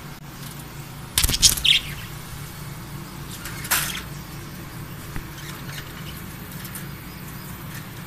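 Budgerigar in a wire cage: a cluster of sharp flapping and rustling sounds about a second in, with a short chirp after it, and another brief burst near four seconds. Faint scattered chirps and ticks run over a low steady hum.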